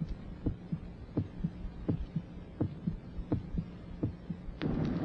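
A slow heartbeat, each beat a double thump, repeating about every 0.7 seconds over a faint steady low hum. Near the end a dense low rumble swells in.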